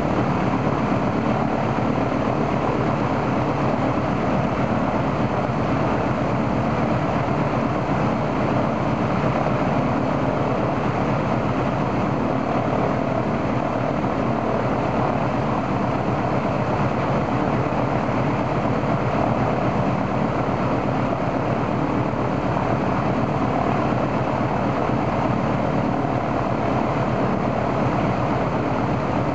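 Il-14's right-hand Shvetsov ASh-82T fourteen-cylinder radial engine running steadily on a ground run-up, propeller turning, as a check after its oil cooler was replaced.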